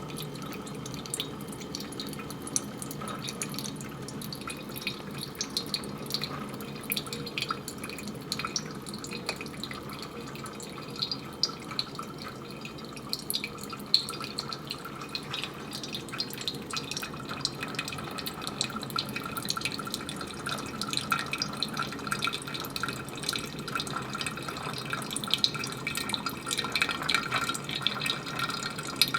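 Mr. Coffee Perfect Brew 8-cup drip coffee maker brewing: a steady sputtering hiss of hot water, with many small crackling pops and drips throughout.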